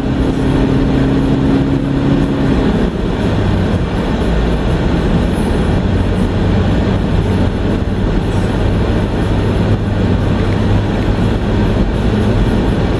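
Car driving on a road, heard from inside the cabin: a steady rush of tyre and road noise under a low engine hum. About three seconds in, the hum drops to a lower pitch.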